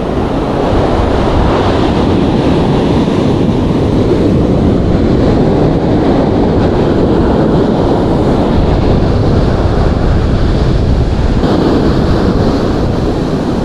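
Ocean surf washing onto a beach, with wind buffeting the microphone: a loud, steady rushing noise.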